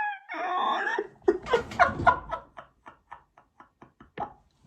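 A person laughing: a run of short ha's that slows down and fades out.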